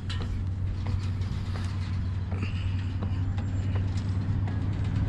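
Footsteps on fire tower stairs: irregular knocks and creaks from the steps over a steady low rumble.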